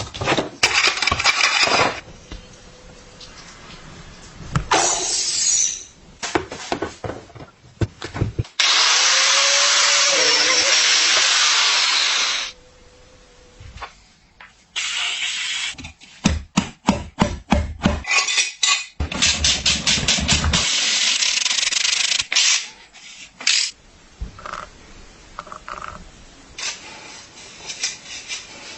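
Workshop sounds of a bicycle being restored: several bursts of a running power tool, the longest about four seconds in the middle, with runs of sharp clicks and taps of hand tools and parts between them.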